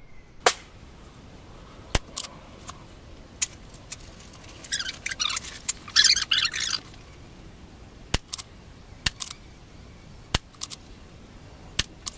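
Sharp cracks of a Hammerli Force B1 .22 LR rifle firing a series, with lighter clicks between them at irregular intervals; the loudest crack comes about half a second in. A bird chirps for a couple of seconds in the middle.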